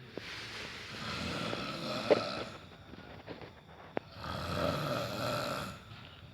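A sleeping person snoring: two long snores a couple of seconds apart, with a short sharp click in the quieter gap between them.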